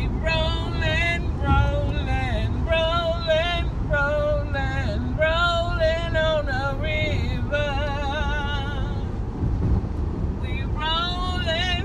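A high singing voice with vibrato, in long sung phrases that break off for a second or two near the end, over the steady low rumble of a car driving on the road.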